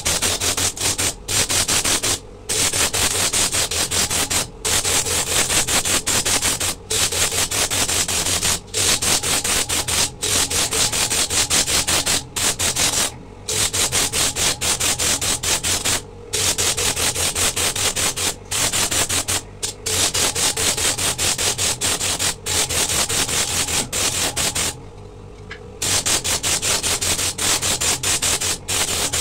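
Coconut shell ground against a motor-driven sanding disc: a continuous rasping grind that pulses rapidly, over a steady motor hum. It breaks off in brief gaps as the shell is lifted away and repositioned, the longest about a second, near the end.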